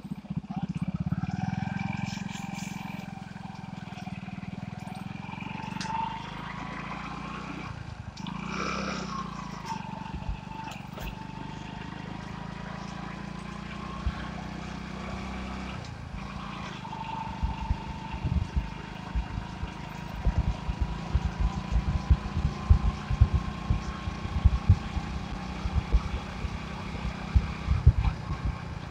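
Motorcycle engine running steadily while riding, with a whining tone that slowly rises and falls with speed and a brief louder swell about eight seconds in. From about seventeen seconds in, repeated low thumps hit the microphone.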